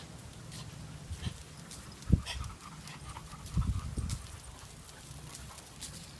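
A pack of dogs out walking on leash: scattered footfalls and small clicks over a low rumble, with a louder thump about two seconds in and a cluster of thumps around the middle.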